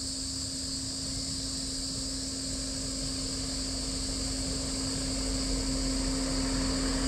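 A car approaching slowly over a brick-paved track, its engine and tyre rumble growing gradually louder. A steady high buzz of insects runs throughout, over a steady low hum.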